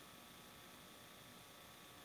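Near silence: only a faint, steady hiss with a thin electrical hum, the recording's noise floor.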